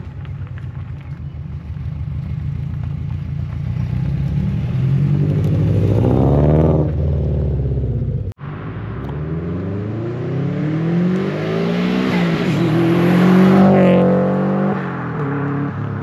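Loud exhaust of a turbocharged Subaru Impreza's flat-four engine, revving with its pitch rising over several seconds. After a brief break about eight seconds in, it climbs again, peaks and falls back near the end.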